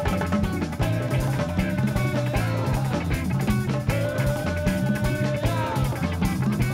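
Background music with a steady drum beat and held melody notes that bend in pitch.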